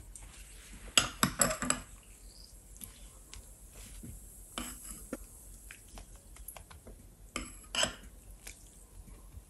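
A metal spoon clinking and scraping in three short spells, mixed with the rustle of a linen tablecloth being handled, as stain-remover solution is spooned onto the cloth.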